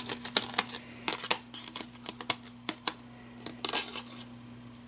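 Thin metal die-cut circles clicking and clinking as they are picked up and set back down in a clear plastic storage case: a scatter of light, sharp clicks, with a brief rustle nearly four seconds in.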